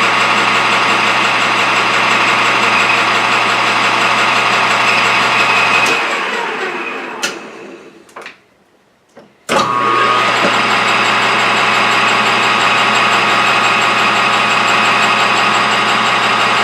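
Metal lathe motor and spindle running with a steady hum and whine, coasting down to a stop about six seconds in. A couple of clicks follow, and it is running again suddenly at full speed a few seconds later.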